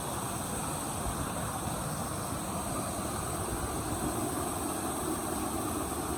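Steady rush of a mountain stream and its small waterfalls, with a faint high steady hum over it.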